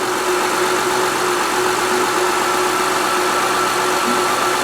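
A 2005 Honda Pilot's 3.5-litre V6 idling in neutral, heard from inside the cabin. It runs fairly evenly, with a slight up-and-down to it.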